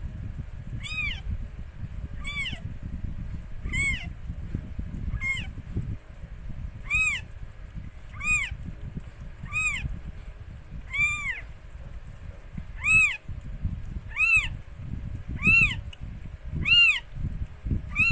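Newborn kitten mewing over and over, a short high cry that rises and falls, about one every second and a half. A low rumbling runs underneath.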